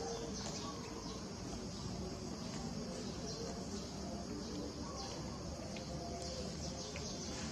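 Insects buzzing steadily in a high, even drone, with a few short high chirps scattered through it.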